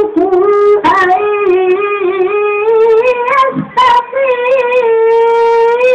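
Melodic Qur'an recitation: a qari's solo voice holds long, high, ornamented notes that waver and turn between pitches, with a few short breaths between phrases.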